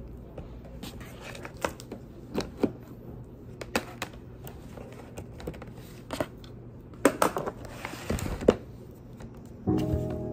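A series of irregular light clicks and taps over low room noise, with a quick cluster of louder ones a little after the middle; background music comes in near the end.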